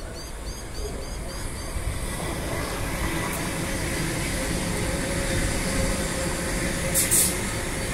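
OSCAR H-set double-deck electric train running past along the platform: a steady rumble of wheels on rail with a steady hum from about three seconds in. A short high hiss comes about seven seconds in.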